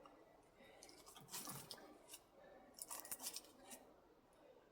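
Faint metallic scraping and clicking as copper winding wire is worked and pulled out of an electric motor, in two short clusters, about a second in and again around three seconds in.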